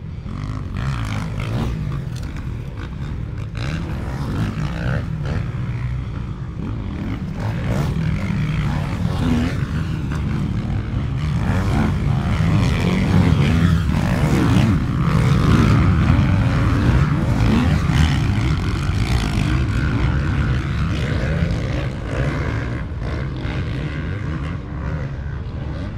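Motocross bike engines revving hard on a dirt track. The sound swells to its loudest a little past midway as a bike comes over the jump, then eases off.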